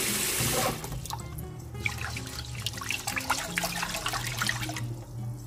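Tap water running into a stainless steel pot of rice, shut off within the first second; then a hand swishing and rubbing the rice grains in the water, a busy patter of small splashes and grain clicks that dies away near the end. Light background music underneath.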